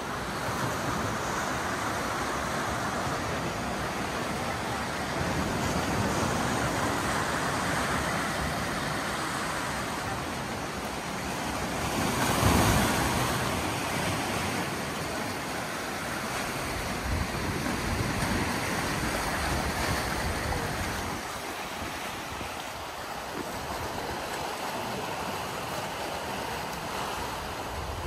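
Sea waves washing against shoreline rocks, a steady rush that swells and eases, with one bigger wave breaking about halfway through.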